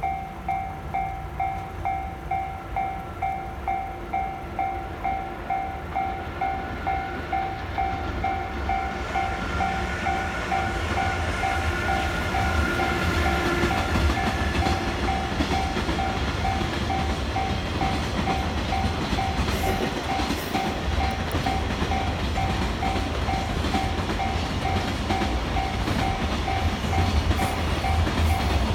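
Japanese level-crossing warning bell ringing its steady electronic ding-ding, about one and a half strikes a second. From about nine seconds in a train passes through the crossing, its rumble and wheel clatter growing and staying loud over the bell.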